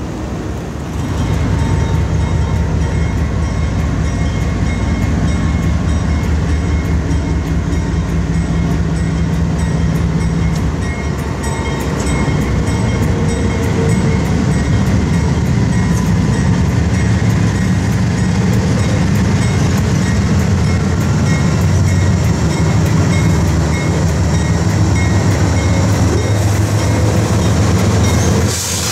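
A lash-up of diesel-electric freight locomotives rolling slowly past close by. Their engines make a loud, steady low drone that swells about a second in, under a steady run of faint clicks from the wheels on the rails.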